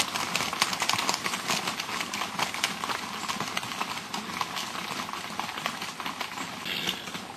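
Horses' hooves clip-clopping on a hard surface: a dense, irregular patter of many hoof strikes, easing off slightly toward the end.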